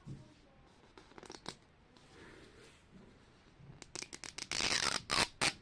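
Packaging being torn open by hand: a few light crackles, then a quick run of sharp crackles and a loud tearing rip with two short rips after it near the end.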